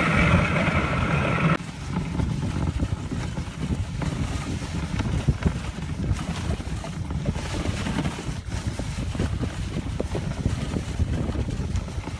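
Dog sled running over packed snow: a steady low rumble and rustle from the runners, with wind buffeting the microphone. A louder, denser noise in the first second and a half cuts off abruptly.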